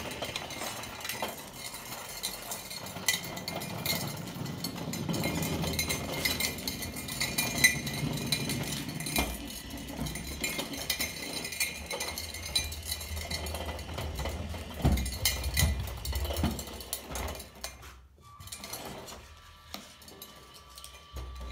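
Irregular clinking and rattling of small hard objects over a low rumble, quieter for a few seconds near the end.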